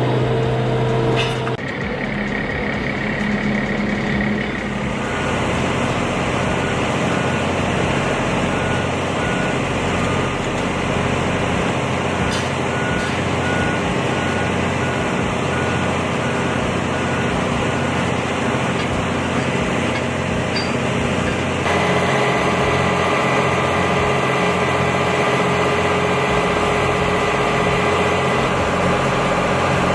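Heavy vehicle engine running, with a backup alarm giving a long series of evenly spaced beeps as a truck or construction machine reverses. The beeping starts about five seconds in, breaks off briefly and then resumes.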